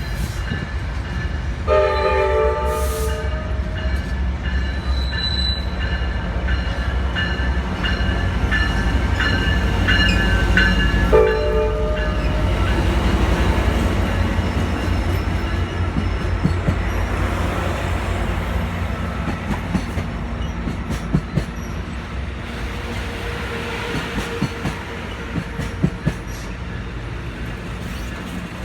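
Amtrak Pacific Surfliner locomotive horn sounding a multi-note chord for about two seconds near the start, then a second short blast about eleven seconds in, over the deep diesel rumble of the departing train. In the second half the rumble eases and the wheels click and squeal over the rails.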